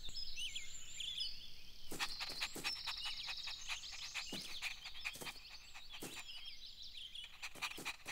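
Faint outdoor nature ambience: birds chirping and trilling in many short high calls, with a scatter of quick clicks from about two seconds in.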